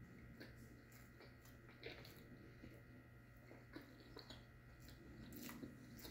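Faint chewing of a mouthful of fried chicken sandwich, with soft mouth sounds and a few small clicks over a low steady hum.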